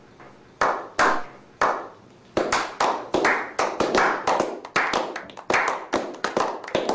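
A small group's slow clap: three single, separate claps about half a second apart, then from about two and a half seconds in the clapping speeds up into quick, overlapping claps from several people.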